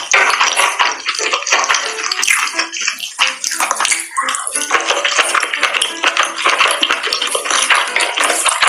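Close-miked mukbang eating sounds: wet, sticky crackling and clicking of chopsticks working food in thick sauce and of chewing, with music underneath.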